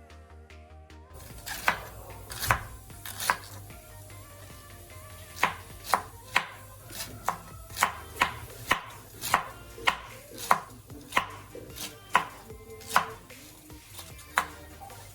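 Knife chopping on a cutting board: sharp, separate knocks starting about a second and a half in, at an uneven pace of one or two a second.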